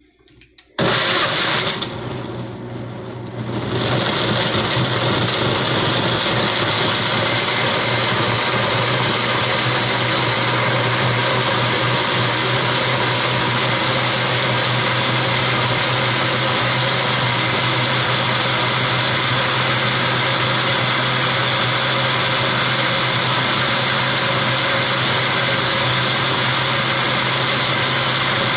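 Electric blender starting about a second in, dropping briefly lower, then running steadily at full speed, blending chopped garlic, ginger, onion, lemon, cloves and aloe vera.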